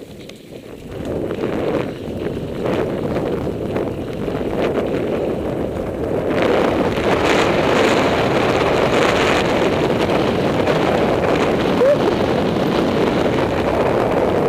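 Wind rushing over the microphone of a mountain bike riding downhill, building up about a second in and growing louder around six seconds in as the bike gathers speed.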